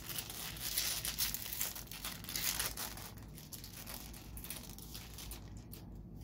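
A foil trading-card pack wrapper, a 2012 Panini Golden Age baseball card pack, being torn open and crinkled by hand: a dense crackle of foil that dies down about halfway through.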